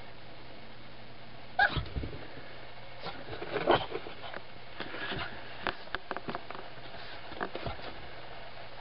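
A pug yapping at its own reflection in a mirror. There is a sharp, high yap about one and a half seconds in and a louder cluster a couple of seconds later, followed by a run of quick clicks and taps.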